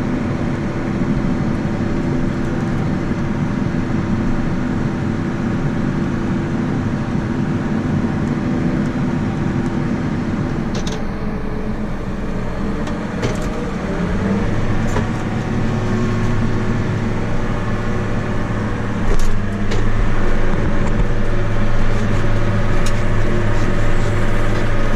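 Farm machinery diesel engine running steadily under load, heard from inside the cab. About halfway through its note changes and a deeper steady hum comes in.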